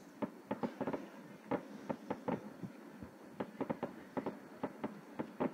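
Distant fireworks going off in an irregular run of sharp pops, about four a second.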